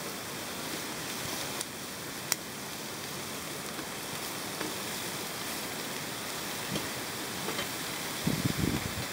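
Beef short ribs sizzling in a foil-lined dish over heat: a steady hiss with a few sharp pops, and some low rumbling near the end.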